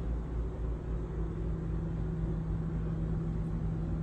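Steady low machine hum and rumble inside the motorhome, with a constant underlying tone.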